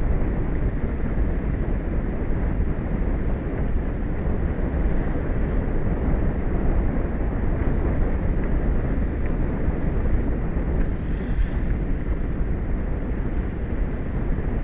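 Steady wind buffeting the microphone over the sound of open-ocean waves.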